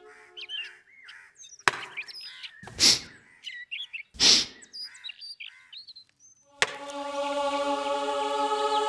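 Axe chopping into a log: a sharp crack, then two heavier chops between about one and a half and four and a half seconds in, with small birds chirping around them. Background music with long held notes comes in about two-thirds of the way through.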